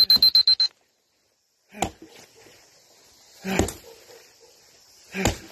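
A fast run of loud, high electronic beeps that stops under a second in, then three axe strikes into wood, each a sharp chop about a second and a half to two seconds apart.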